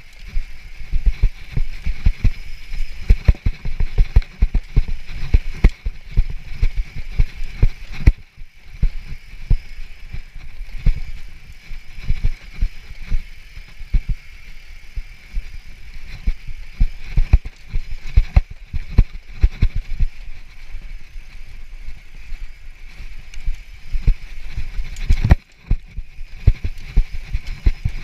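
Mountain bike descending rough, rocky singletrack: a fast, irregular run of low knocks and thuds as the bike and the rider-mounted camera are jolted over rocks and roots, over a steady hiss of tyres and rushing air.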